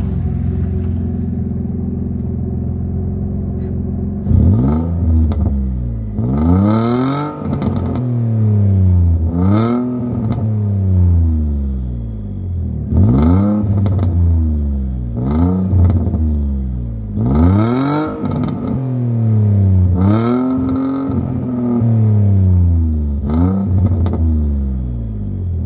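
Single-turbo Nissan 350Z's 3.5-litre V6 idling, then revved in place about ten times, each rev rising sharply and falling back toward idle. The exhaust leaks, which the owner says throw off its sound.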